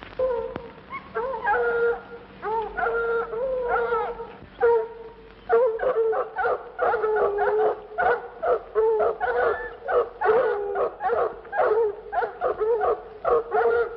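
Several dogs baying: long drawn-out howls for the first few seconds, then rapid overlapping barking from about five seconds in.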